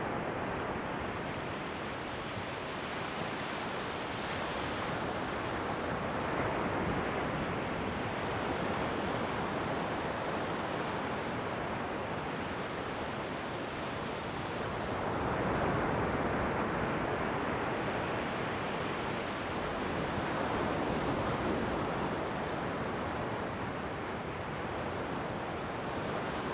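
Ocean waves breaking on the shore: a continuous surf wash that swells louder every few seconds as each wave comes in and then eases back.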